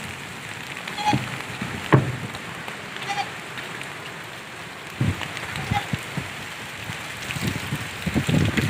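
Steady rain falling on a muddy yard, with goats bleating briefly a few times (about one, three and six seconds in). A few low thumps stand out, the loudest about two seconds in.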